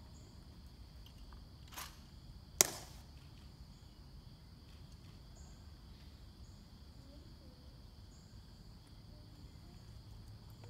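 Quiet outdoor ambience with a steady high insect drone, broken by a faint click and then one sharp crack about two and a half seconds in, from the sentinels' rifle drill as they present arms.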